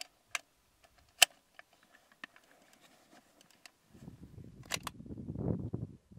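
Scattered sharp clicks and knocks from handling a bolt-action chassis rifle and its scope, one much louder about a second in. From about four seconds in, wind rumbles on the microphone, with a quick pair of clicks near five seconds.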